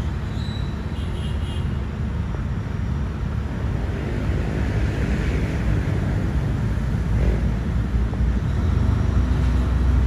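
Diesel engine of a Caterpillar wheeled excavator running with a steady low rumble, growing louder in the last few seconds.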